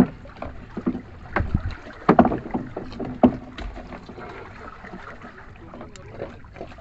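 Knocks and thumps against a small fishing boat as a gill net with fish is hauled in over the side and handled, a few sharp knocks in the first three seconds or so, over a steady wash of wind and water.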